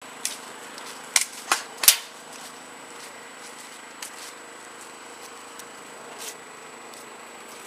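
Sharp cracks of airsoft guns firing single shots: three close together between one and two seconds in, then a few fainter scattered ones, over a steady faint hum.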